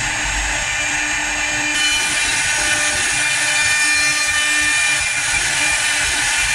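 CNC wood lathe turning a square wooden blank into a spindle: a steady motor whine under the rough hiss of the cutter chipping the wood. The hiss turns brighter about two seconds in.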